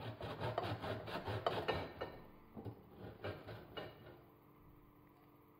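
A ball of chortan (dried, pressed matsoni) being grated on a metal box grater: a quick run of rasping strokes for about two seconds, then a few slower strokes, then stopping about four seconds in.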